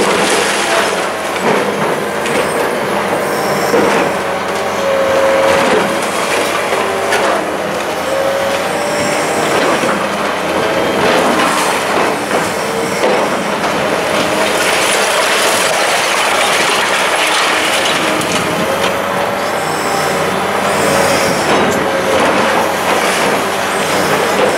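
Long-reach demolition excavator crunching through a concrete apartment block with its hydraulic crusher, concrete cracking and rubble clattering down over the machine's running engine. Short squealing tones come and go throughout.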